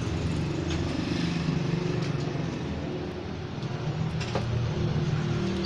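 A small engine running steadily with an even, low note.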